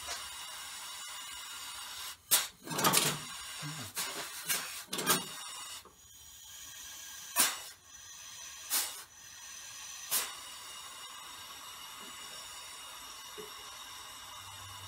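Several short bursts of hissing and knocking from the valves and air fittings of a home-built six-cylinder compressed-air engine as they are handled, during a hunt for a leaking valve. A cluster of them comes a couple of seconds in, then single ones at intervals, over a faint steady hiss.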